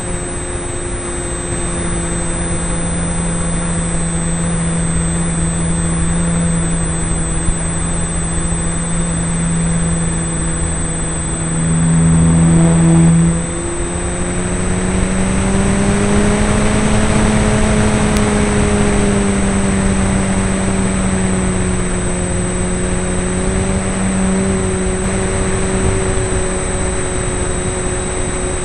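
RC model airplane's motor running steadily, heard from a camera mounted on the plane, over rushing air. It gets briefly louder about twelve seconds in and cuts back suddenly, and a few seconds later its pitch rises and falls again.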